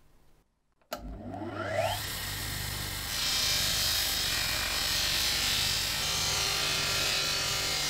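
Bench grinder fitted with a cloth buffing wheel starting up about a second in with a rising whine, then running steadily. From about three seconds a harsh rubbing hiss joins in as polishing compound and the brass helmet are pressed against the spinning wheel.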